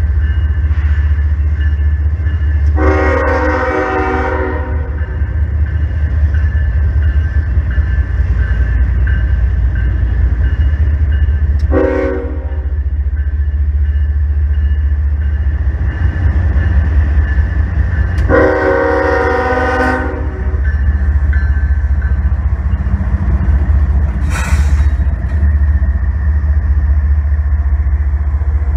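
Approaching diesel freight locomotive sounding its air horn: a long blast, a short one, then another long blast, over the steady low rumble of the engine and train. The locomotive passes close near the end.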